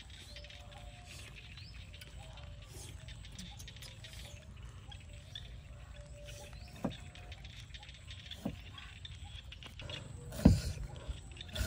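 Heavy cleaver chopping on a thick round wooden chopping board: two single knocks in the middle, then a quick run of louder chops near the end.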